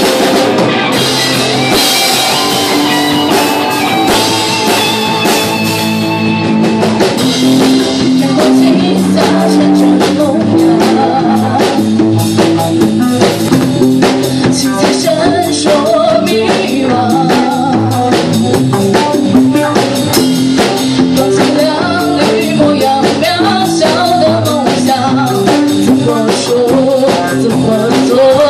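A rock band playing live, with electric guitars, bass guitar and a drum kit. A lead singer's voice joins over the band in the second half.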